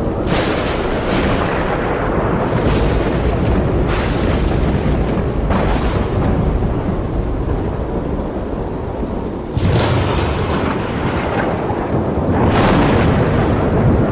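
Thunderstorm: continuous low rolling thunder with several sudden sharp cracks that fade out, over steady rain.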